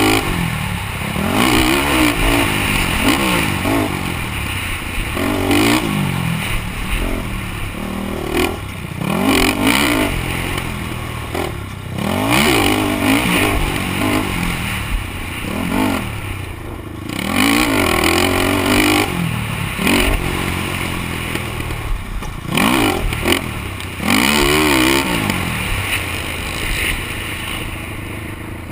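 Honda TRX450R sport quad's single-cylinder four-stroke engine revving hard, its pitch climbing and dropping back over and over as the rider accelerates, shifts and backs off around a dirt track, heard from a helmet-mounted camera with rattling from the rough ground.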